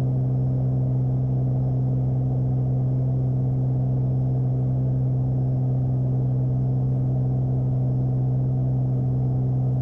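Beechcraft Bonanza's six-cylinder piston engine and propeller droning steadily in the cabin, at reduced approach power with the propeller set to high RPM.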